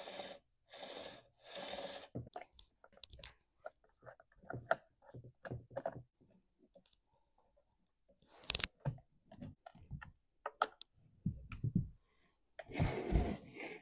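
A new chainsaw bar and chain being handled and fitted onto a Stihl MS 261: three short rustles at first, then scattered light clicks and taps of metal parts, and another rustle near the end.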